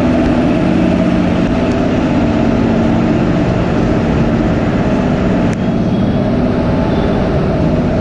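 WAG-7 electric locomotive and its MEMU rake at the platform: a loud, steady machinery hum over a rumbling noise, with the hum easing about halfway through.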